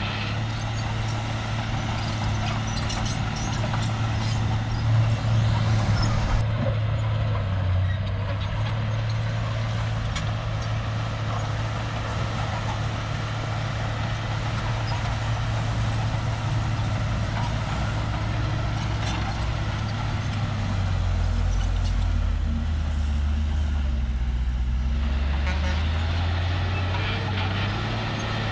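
Diesel engine of a Shantui crawler bulldozer running steadily, with light rattling. About three quarters of the way in, the engine note drops lower for a few seconds, then comes back up.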